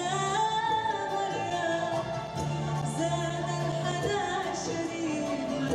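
A woman singing an Arabic song with an orchestra accompanying her, her melody gliding up and down over held string and ensemble notes.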